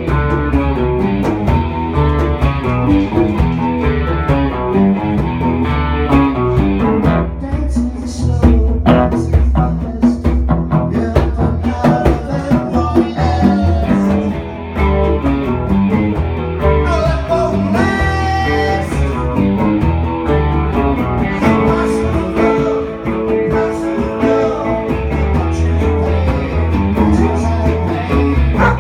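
Live band playing a blues-rock tune on electric guitars and bass guitar.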